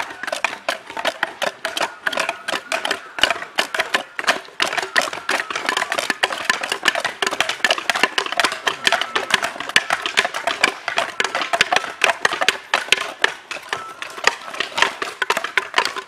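Several machete blades chopping and shaving at short wooden logs at once, making rapid, irregular, overlapping woody knocks several times a second.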